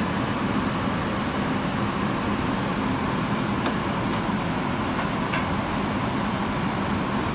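Steady hum and rush of commercial kitchen ventilation, with a few faint clicks.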